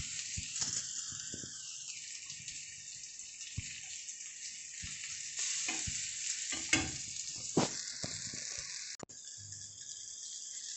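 Chopped onion and tomato sizzling in oil in an iron kadhai, stirred with a metal spatula that scrapes and taps against the pan every second or so.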